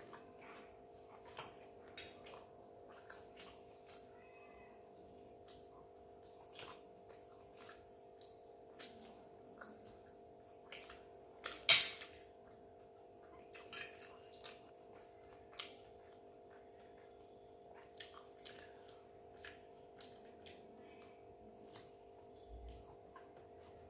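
Scattered clinks and taps of dishes and cutlery during a meal, the sharpest clink about twelve seconds in, over a steady low hum.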